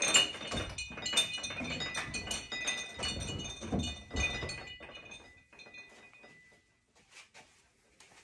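Hanging chimes jangling together: a rapid run of clinks with ringing tones that die away over about five seconds, one tone lingering a little longer, with a few dull knocks mixed in during the first half.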